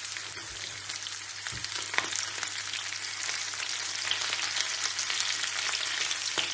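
Floured onion rings sizzling and crackling as they fry in bacon fat in a frying pan, with a plastic spatula stirring and turning them in the second half.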